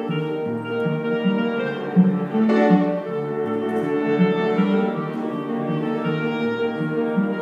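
Live chamber music from a trio with grand piano and cello: a long held upper note over a moving lower line.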